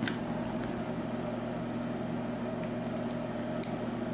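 Steady low electrical hum, with a few faint light clicks of small metal lock parts being handled.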